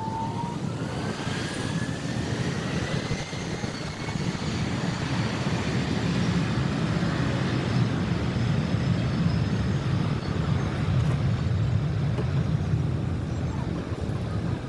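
Airbus A330's twin Rolls-Royce Trent 700 turbofans spooling up on the runway at the start of a takeoff, a thin whine rising in pitch over the first few seconds. Then a heavy, steady jet noise grows louder as the aircraft rolls past.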